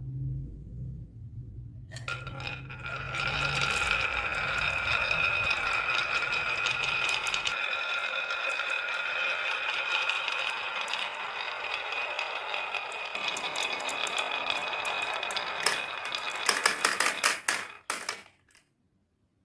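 Marbles rolling and clattering down a marble run track in a steady rattle with a ringing tone. It ends in a flurry of sharp clicks, then stops suddenly. A low hum fades out in the first few seconds.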